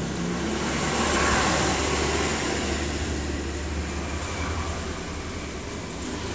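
A motor vehicle going past, its engine and road noise swelling about a second in and slowly fading, over a steady low hum.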